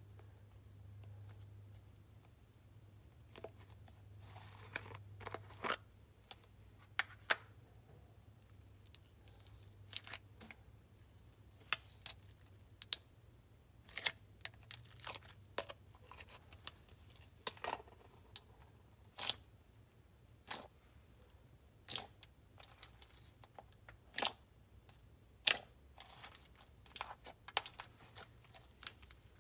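Slime being squished and played with by hand: irregular sharp pops and crackles, a few every couple of seconds, over a faint low hum.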